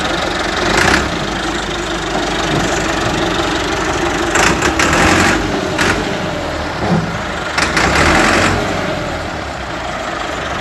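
Massey Ferguson 385 tractor's diesel engine running, with two louder surges around the middle.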